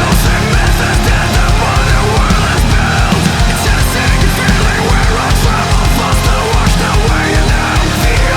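Loud, driving heavy-metal style background music with a steady pounding beat.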